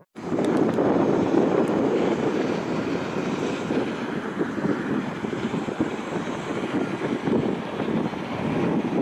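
Aircraft engine noise: a steady, loud rush.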